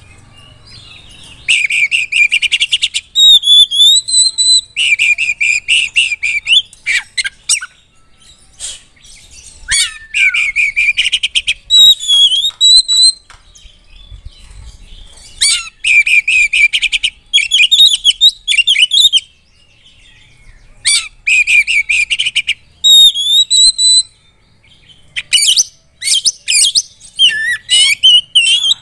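Oriental magpie-robin (kacer) in loud, vigorous song: bursts of rapid chattering note runs alternating with whistled phrases that slide up and down, the phrases broken by short pauses.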